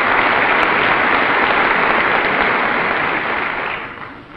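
Members of Congress applauding: an even clatter of many hands clapping that dies away near the end.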